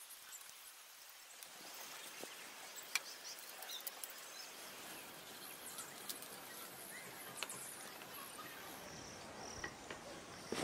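Faint outdoor ambience of insects and birds chirping, with a few light knocks; the clearest comes about three seconds in.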